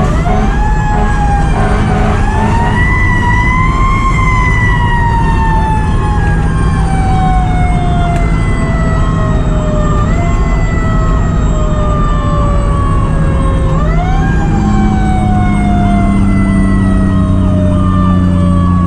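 Fire truck siren wailing loudly, its pitch sliding slowly up and down, with quick rises again about ten seconds in, about fourteen seconds in and near the end. Under it runs the truck's engine and road noise, the engine's low hum getting stronger from about fourteen seconds in.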